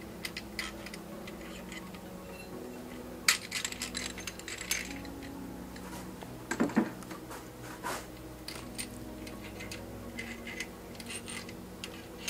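Light metallic clinks and taps of loose steel camshaft bearing caps and bolts being handled and set down on an aluminium cylinder head, irregular, with the loudest clusters about three seconds in and again near seven seconds.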